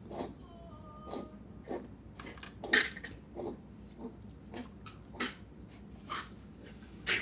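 Puppy coughing in a run of short coughs, roughly two a second, the loudest about three seconds in.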